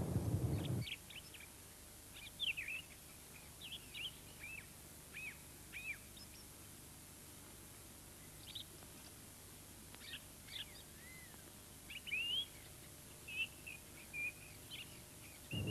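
Small birds chirping: scattered short high chirps and whistled notes, some sliding up and some down, often several in a second. A loud low noise cuts off suddenly about a second in.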